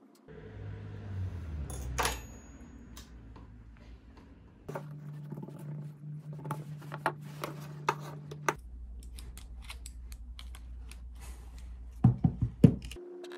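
Keystrokes on an Apple Magic Keyboard: irregular light clicks over a steady hum. A single sharp tap comes about 2 s in, and a quick run of louder clicks comes near the end.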